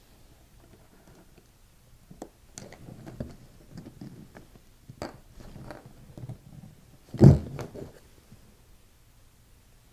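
Handling noise from fingers working thin cord wires into a small plastic soldering clip on a cloth-covered bench: scattered light clicks and rustles, with one louder knock about seven seconds in.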